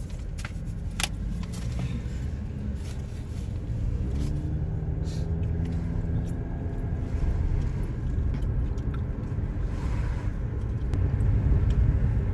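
Car driving, with the rumble of engine and road heard inside the cabin. A couple of sharp clicks come in the first second or so, and the engine's pitch rises about four seconds in as the car gathers speed.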